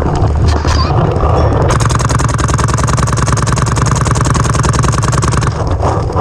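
Paintball markers firing a rapid, even string of shots for several seconds, over a steady low rumble.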